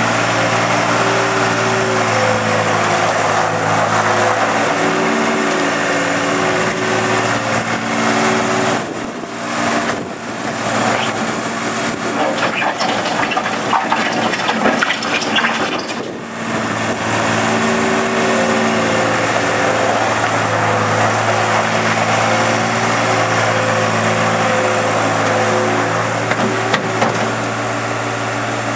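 New Holland L180 skid steer's diesel engine running steadily. For several seconds in the middle the even engine note breaks up into rougher noise and clatter, then settles back to a steady run.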